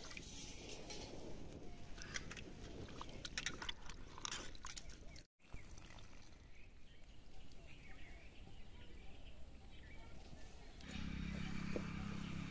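Light clicks and scrapes of cut potato pieces against a steel bowl as they are rinsed by hand. A louder, steady low sound comes in near the end.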